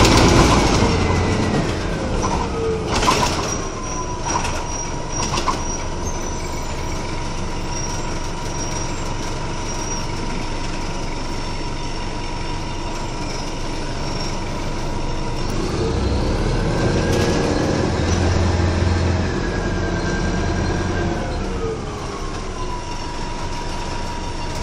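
Ride inside a 1996 Nova Bus RTS transit bus: a high whine from the bus falls in pitch over the first few seconds, holds steady, then rises about two-thirds of the way through as the engine pulls harder, and falls again near the end. A couple of sharp knocks come a few seconds in.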